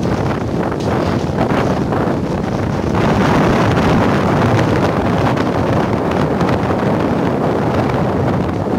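Strong cyclone wind buffeting the phone's microphone, with the rough sea's surf mixed in; the gusting grows louder about three seconds in.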